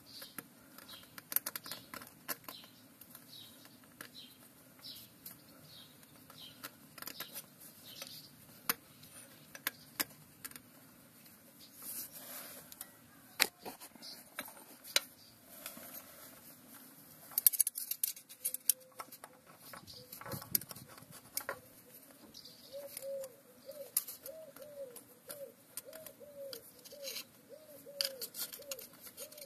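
Light metallic clicks and scrapes of a small screwdriver and cast iron sealing rings being worked on a tractor transmission input shaft. About three-quarters of the way in, a pigeon starts cooing in a steady repeating rhythm.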